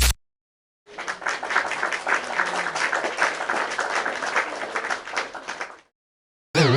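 Applause sound effect: many hands clapping for about five seconds, tailing off before it stops. Near the end a loud warbling tone with a fast up-and-down wobble in pitch starts.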